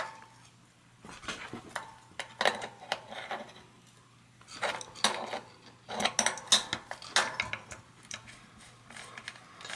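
Light metallic clinks and rattles from a cone wrench and an adjustable wrench being handled against a bicycle's rear hub and axle lock nut, in scattered clusters with short quiet gaps.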